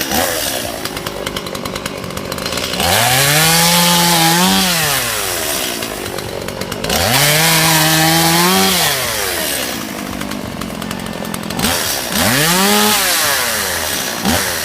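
Chainsaw idling and being revved up three times, each rev rising quickly in pitch, held high for a second or two, then dropping back to idle.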